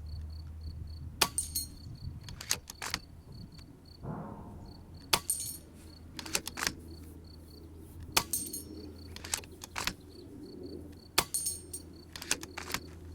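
FX Impact M3 PCP air rifle fired at a steady pace, about ten sharp shots a second or so apart, some with a second click close behind, with the rapid-repeat action cycled between shots. Crickets chirp in a steady high pulse, over a low wind rumble.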